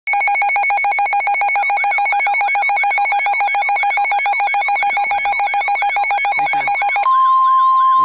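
Midland NOAA weather radio sounding its alert: a loud, fast pulsing two-tone beep, about eight pulses a second. About seven seconds in it switches to the steady 1050 Hz NWS warning alarm tone, the signal that a warning broadcast follows. A faint, fast up-and-down warble runs underneath.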